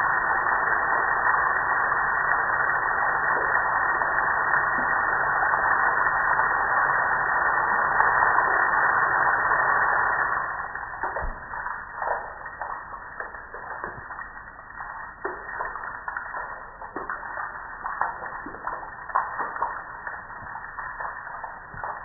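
Water spray hitting the metal body of a gas grill as a steady hiss that stops about ten seconds in, followed by water dripping and splashing off the grill onto concrete in scattered taps.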